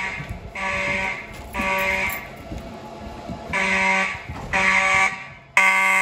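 Fire alarm horns sounding the temporal-three evacuation pattern: three pulses, a pause of about a second, then three more. The last pulse is loudest and stops abruptly.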